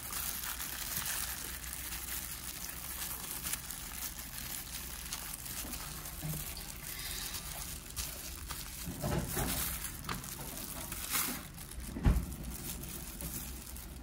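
Food being laid out by hand on a metal tray: soft rustling of a thin plastic food glove and small knocks of food pieces on the tray, over a steady hiss, with one sharper knock about twelve seconds in.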